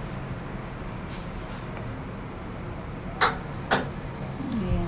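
Packing tape being pulled off the roll onto a cardboard box: two short, loud rasps a little over three seconds in, the first the longer and crackling, over a low steady room hum.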